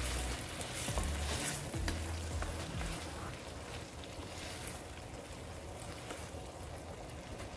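A pan of vegetables in seasoned water sizzling and bubbling on the heat while a wooden spoon stirs through it, with dull low knocks from the stirring in the first few seconds.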